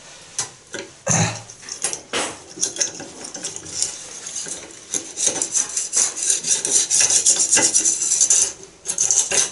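Two thin wire hooks being pushed down and worked up and down in a clogged bathroom-sink pop-up drain, scraping and clicking against the metal drain fitting. From about five seconds in until near the end comes a run of fast scratching as the hooks rake at the clog.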